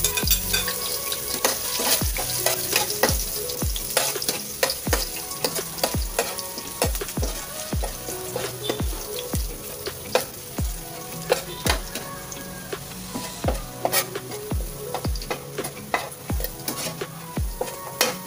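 Minced garlic sizzling in hot cooking oil in a non-stick frying pan, with a steady hiss. A metal spoon stirs it, clicking and scraping against the pan about once or twice a second.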